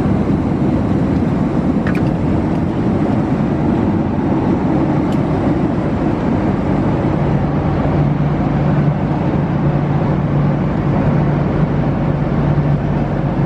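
Steady cabin noise of a jet airliner in cruise: even engine and airflow noise with a low hum that grows a little stronger about halfway through.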